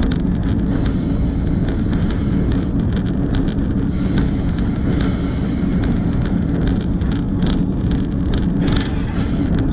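Diesel locomotive running steadily as it rolls along the track, heard from its open outside walkway, with frequent short sharp clicks and rattles over the low engine drone.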